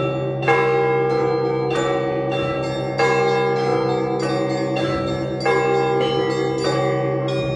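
Russian Orthodox church bells rung in a continuous peal: small and medium bells struck over and over in a quick pattern, with a heavier stroke about every two and a half seconds and a deep bell hum sounding under it all.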